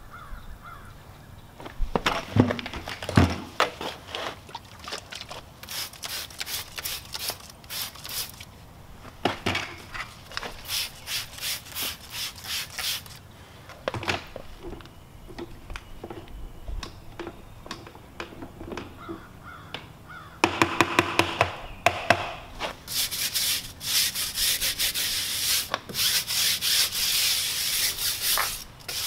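A wet car wheel and tyre being hand-scrubbed with a detailing brush and wash mitt: bursts of quick back-and-forth rubbing strokes, busiest and loudest in the last third.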